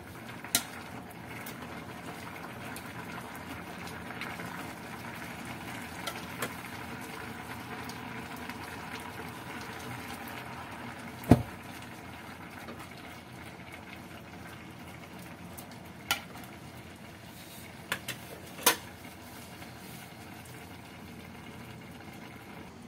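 A pot of cassava-leaf and coconut-milk stew boiling, with a steady bubbling. A few sharp knocks break through it, the loudest a little past the middle and a quick cluster of them later on.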